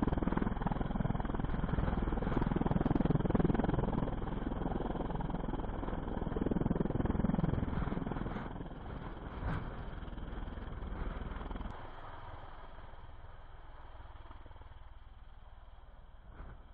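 Steady engine noise, a dense rumble that is loudest in the first half and then dies away in steps over the last several seconds.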